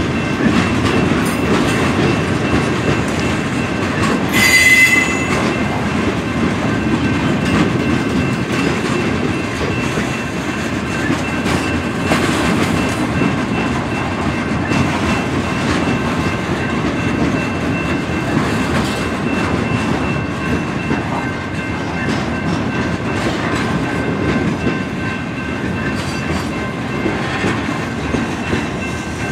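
Freight train of boxcars rolling past, a steady rumble with wheels clacking over the rail joints. About four and a half seconds in comes a short, high metallic squeal.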